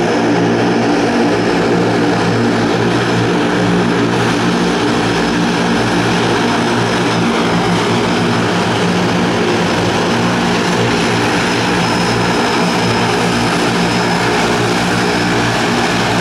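A de Havilland Canada DHC-6 Twin Otter's two Pratt & Whitney Canada PT6A turboprops running as it taxis past: a steady propeller drone with a faint high turbine whine above it.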